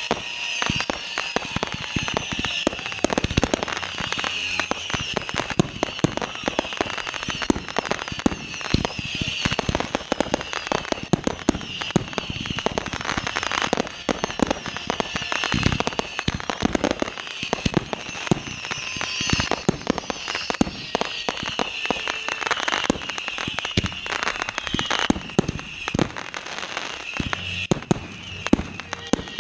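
Fireworks show: a dense, continuous barrage of rapid crackling and sharp bangs.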